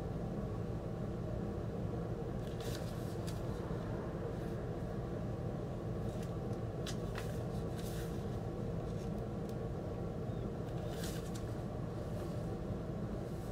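Shrink-wrapped vinyl record sleeve handled, giving a few short, faint plastic crinkles and rustles over a steady low room hum.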